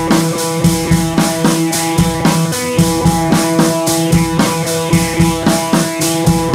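Background music with a drum kit keeping a steady beat over held instrumental notes.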